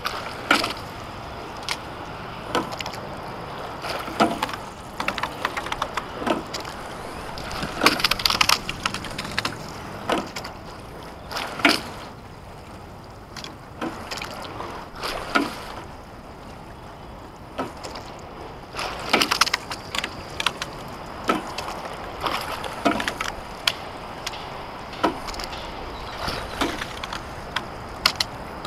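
Racing shell being rowed: a sharp knock from the oars and rigging with each stroke, coming every one to two seconds, over a steady hiss of water and wind.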